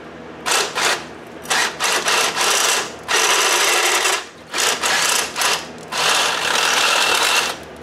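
Cordless drill with a step bit running in five bursts, two short ones and then three longer ones of about a second, some with a steady high whine. It is enlarging a misplaced bolt hole in a coilover mount.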